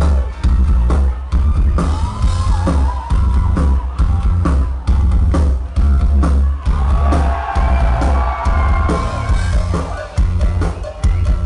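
Live rock band playing loud: steady drum hits and electric guitar over a heavy, booming bass, heard from the crowd.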